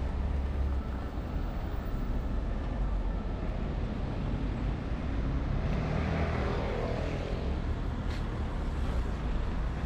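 City street traffic: cars and other vehicles driving along an urban avenue in a continuous low hum, with one pass growing louder about six seconds in.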